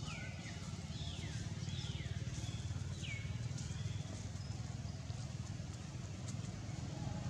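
Outdoor treetop ambience: birds giving short high chirps that fall in pitch, several in quick succession in the first three seconds and then sparse, over a steady low rumble.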